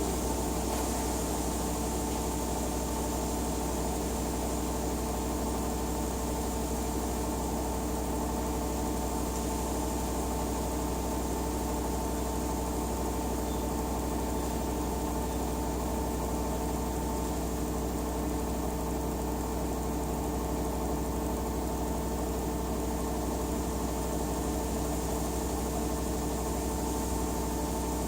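LG WT-R852 direct-drive washing machine running steadily: a constant motor hum with a few steady whining tones that hold the same pitch throughout.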